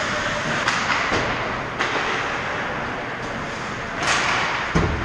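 Ice hockey play near the goal: skates scraping the ice and sharp clacks of sticks and puck. There is a hissing skate scrape about four seconds in and a heavy thump just before the end as players and the goalie meet at the net.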